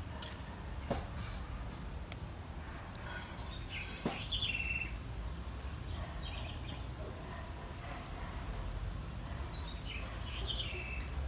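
Small birds singing: two bouts of quick, high, arching chirps, the first about three seconds in and the second about eight seconds in, over a low steady background rumble. A couple of faint knocks are also heard.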